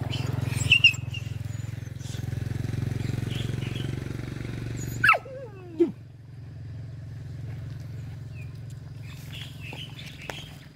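A dog growling low and steadily, which stops abruptly about five seconds in. A short sound sliding down in pitch follows, then a quieter low rumble.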